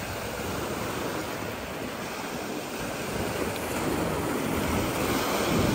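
Ocean surf washing up on the beach: a steady rush of breaking waves.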